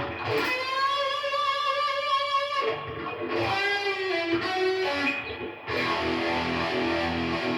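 Electric guitar playing over an A: two long sustained single notes, then several notes ringing together as a chord from about two-thirds of the way in.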